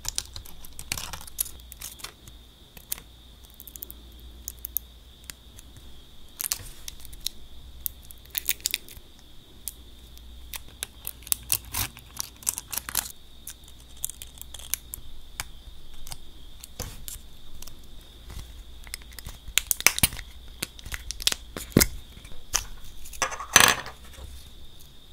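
Small metal scissors snipping a crumpled sheet of iridescent nail foil into flakes, with the foil crinkling and crackling: many short snips and crackles, a louder cluster near the end.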